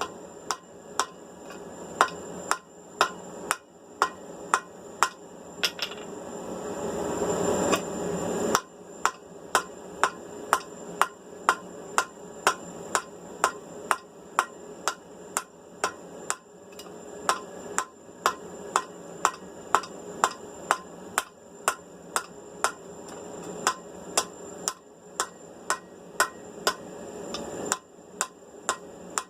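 Hand hammer striking hot steel on an anvil, peening over a rivet to join the halves of a pair of tongs. The blows are sharp and ringing, about one a second at first, then about two a second after a steady rushing noise underneath cuts off abruptly about eight seconds in.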